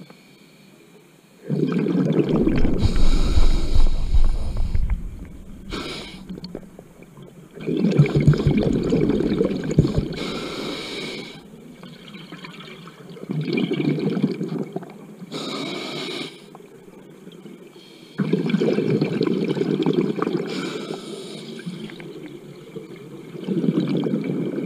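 Scuba diver breathing through a regulator underwater: five long bubbling exhalations a few seconds apart, with short hissing inhalations between them.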